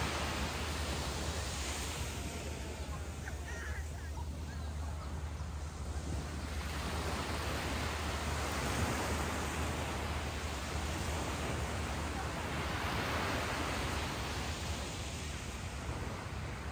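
Small waves breaking and washing up a sandy beach, the surf swelling and easing every few seconds over a steady low rumble.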